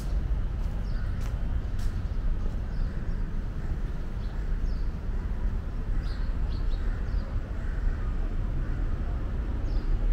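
Outdoor ambience: a steady low rumble throughout, with short bird chirps scattered across it every second or so.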